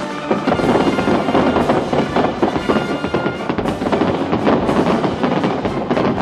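Fireworks bursting and crackling in rapid succession, with music playing alongside.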